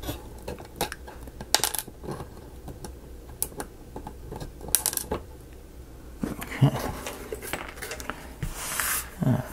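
Irregular light clicks and taps of small miniature-kit pieces being handled and pressed out on a work surface, with a brief scraping rustle and a knock near the end.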